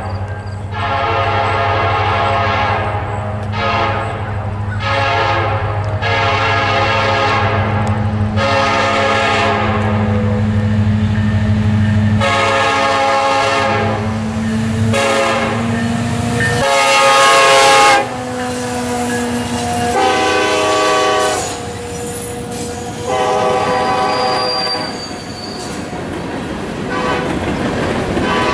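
Norfolk Southern diesel locomotive's multi-chime air horn sounding a long series of long and short blasts. A steady low diesel engine rumble runs under the horn and drops out abruptly about two-thirds of the way through.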